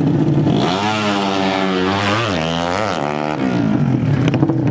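150 cc drag-racing motorcycle accelerating flat out. Its engine pitch climbs, drops back sharply twice at gear changes and climbs again, then stops abruptly about three and a half seconds in. Other bike engines run steadily underneath.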